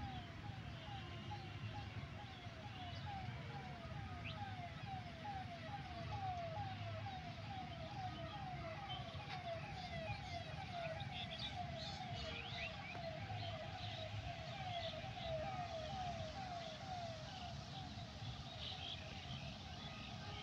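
A siren-like signal of quick falling notes repeats steadily and evenly, without a break, over a low rumble of traffic.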